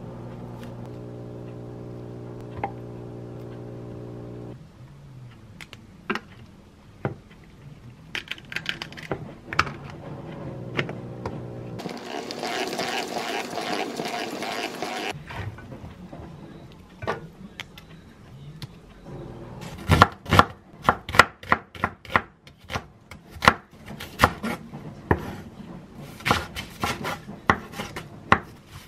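Kitchen knife slicing leafy greens on a wooden cutting board: a run of sharp, loud strokes through the last third. Earlier, for about three seconds, a salad spinner whirs as it spin-dries washed oyster mushrooms.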